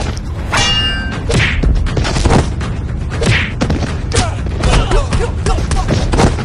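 Fight sound effects: a rapid run of punch and kick thuds and whooshes, with a short metallic ring about half a second in.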